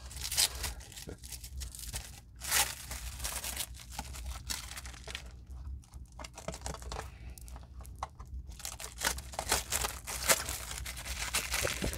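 Clear plastic wrap being peeled and pulled off a model truck's body, crinkling and tearing in irregular bursts, loudest about half a second and two and a half seconds in.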